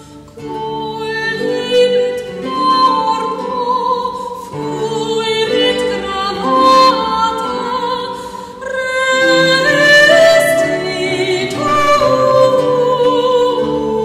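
Background music in a classical, operatic style, with long held melody notes that change pitch every second or two.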